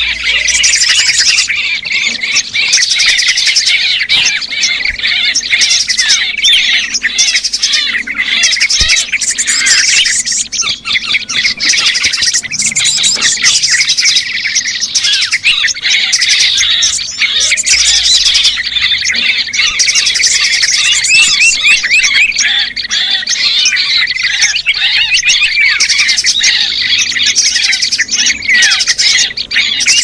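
Dense, loud chatter of many small birds, fast overlapping chirps and squawks without a break: a bird-lure (pikat) call of busy small-bird noise, meant to draw small birds in.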